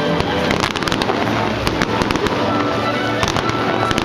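Fireworks bursting and crackling in rapid, irregular bangs over music playing with sustained tones.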